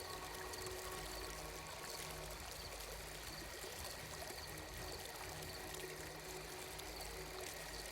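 Ambient soundscape of a gently flowing, trickling stream of water, steady and soft, with faint sustained tones beneath it.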